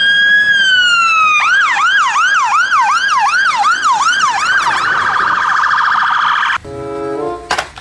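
Fire engine siren sounding on an emergency run: a long wail that slides slowly down, then a fast yelp of about three sweeps a second, then a rapid warble that cuts off suddenly near the end.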